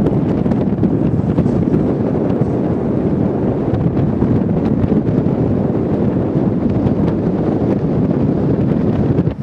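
Loud wind buffeting the microphone from a moving car: a dense, steady low rumble that covers everything else.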